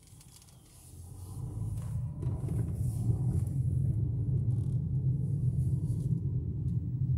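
Low rumble of a car's engine and tyres heard inside the cabin as it pulls away and picks up speed; it swells over the first two seconds, then holds steady.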